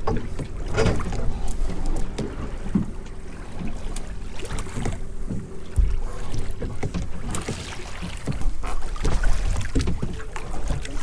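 A boat's twin outboard motors running low, a steady rumble under wind on the microphone, with a few short knocks.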